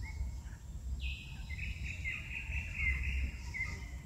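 Outdoor ambience: insects buzzing steadily in a high band that comes and goes, with several short bird-like chirps over a constant low rumble.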